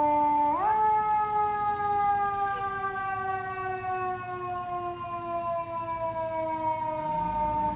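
Fire engine siren sounding at a steady pitch, then rising sharply about half a second in and falling slowly and evenly for the rest of the time.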